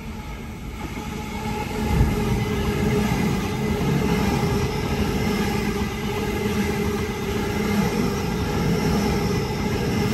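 Sydney Trains Tangara electric suburban train running past along the platform: steel wheels on rail rumbling with a steady hum, growing louder over the first two seconds with a jolt as it arrives, then staying steady as the carriages go by.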